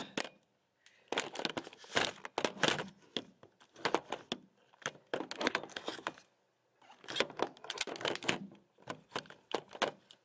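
Rustling and crinkling handling noise from a handheld phone being moved about and brushed by hands and clothing: irregular clusters of scratchy clicks with brief pauses about half a second in and around six seconds in.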